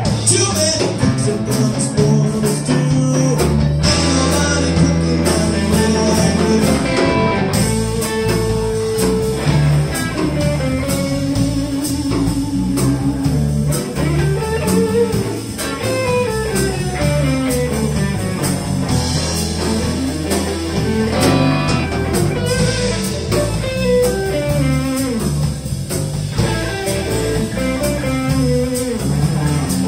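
Live blues band playing an instrumental break: an electric guitar lead with bending notes over bass guitar and drums.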